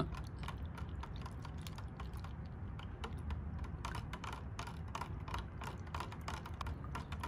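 Metal spoon stirring instant baker's yeast into warm water and molasses in a glass jar, clinking against the glass in quick, irregular clicks several times a second.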